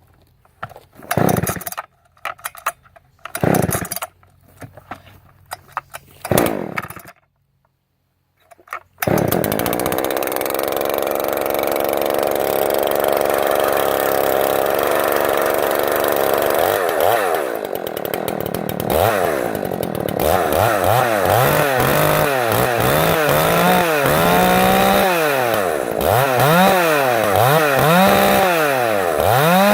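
Ported Echo CS-800P 80 cc two-stroke chainsaw being pull-started: a few short bursts, then it catches about nine seconds in and runs at high revs. From about halfway its pitch rises and falls roughly once a second, the engine loading and unloading as the chain cuts into hard, long-seasoned oak.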